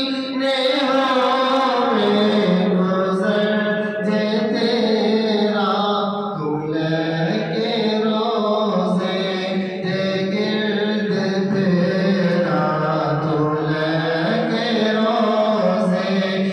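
Men's voices chanting an Islamic devotional recitation in a mosque, with long drawn-out melodic notes and no instruments.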